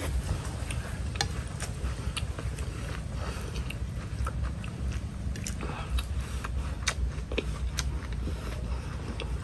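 A person chewing and eating a mouthful of rice vermicelli noodles with chilies, with scattered short clicks of chopsticks and a metal spoon in the ceramic bowl, over a steady low background rumble.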